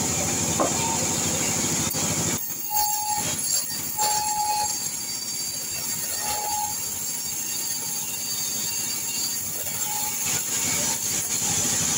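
Sawmill band saw running and cutting lengthwise through a kecapi (santol) log, a steady high whine over the machine's hum. A low rumble drops away about two and a half seconds in, and brief squeals come several times after.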